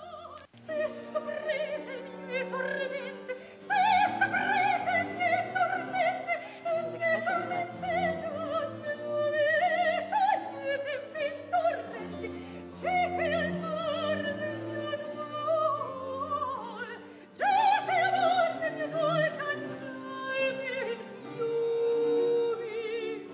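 Baroque opera lament: a high solo voice sings long, wavering held notes in phrases over sustained accompaniment from a period-instrument ensemble.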